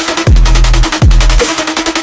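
Loud electronic DJ dance music played for a sound check: deep bass hits that slide down in pitch every second or so under fast, busy high percussion.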